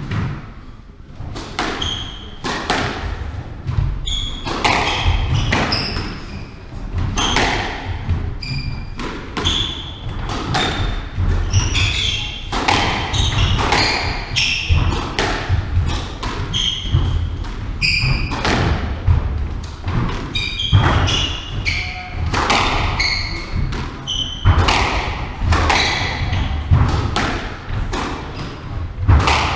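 Squash rally: the ball struck by racquets and hitting the court walls in a quick, steady exchange, with shoes squeaking on the hardwood floor between shots, echoing in the court.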